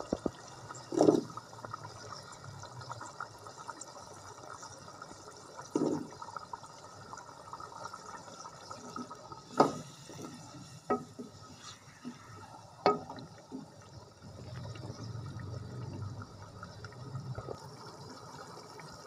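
Tomato-masala gravy with potato chunks bubbling and simmering in a metal pan, with a few sharp knocks and clicks as the potatoes are stirred in.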